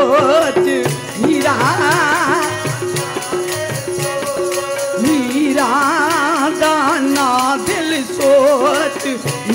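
Kirtan accompaniment between sung lines: a harmonium holds a steady note while tabla and wooden kartal clappers keep up a steady beat. Ornamented melody phrases with a fast waver come in three spells, about one, five and eight seconds in.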